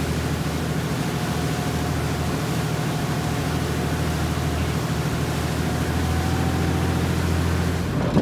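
Fishing boat's engine droning steadily under way, with a constant rushing noise of water from the wake.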